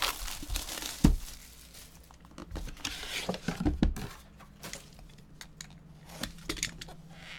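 Cardboard trading-card box being opened by hand: rustling and scraping of the boxboard and paper as the lid and sleeve come off, with light clicks and a sharp knock about a second in.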